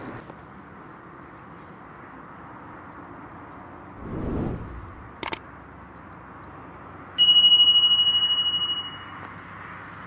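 Subscribe-button sound effects: a short whoosh, a double mouse click, then a bright bell ding that rings and fades out over about two seconds, over faint steady outdoor background noise.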